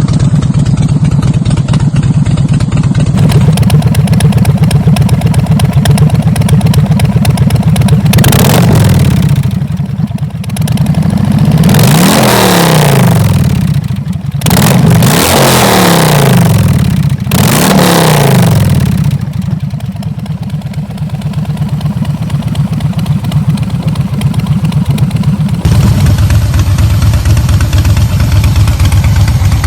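Harley-Davidson Breakout V-twin with its exhaust note at idle, then blipped through a series of revs in the middle, the pitch rising and falling with each one, before settling back to idle.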